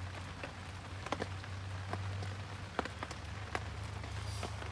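Rain falling on the plastic sheeting of a super shelter, heard from inside: a steady hiss with scattered sharp ticks of drops, over a steady low hum.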